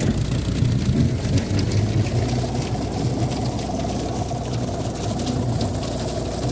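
Tractor engine running steadily as it pulls a bush hog rotary cutter through a field of tall dry grass, passing close and then moving off, slightly quieter after a couple of seconds.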